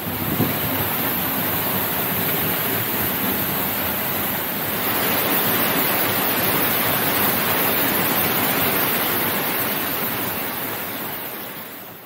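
Hinanger waterfall's falling water: a loud, steady rush that eases off near the end.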